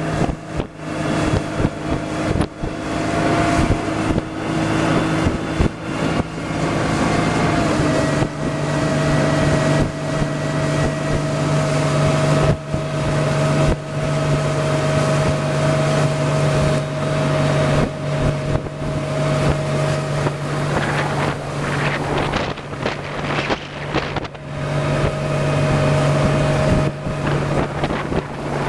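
A small motorboat's outboard motor running steadily under way, its pitch dipping slightly about seven seconds in, with wind buffeting the microphone.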